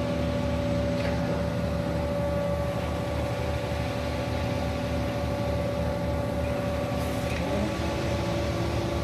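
Concrete mixer truck's diesel engine running steadily with a low, even throb; about seven and a half seconds in, one of its tones steps up in pitch as the revs change.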